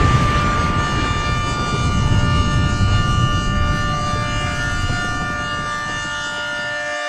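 Explosion sound effect: a deep rumble dying away under a chord of several steady high tones. The rumble cuts off near the end while the tones hold on.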